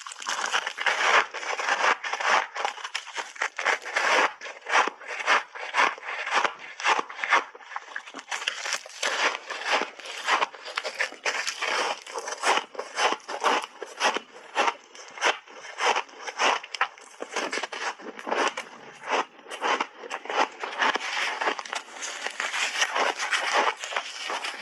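Block ice coated in matcha, milk and sweet potato powder being bitten and chewed close to a clip-on microphone: a steady run of sharp, crackly crunches, about three a second.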